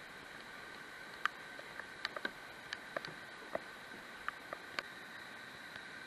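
Steady rush of river water pouring over a low rock ledge, with a dozen or so sharp, irregular ticks.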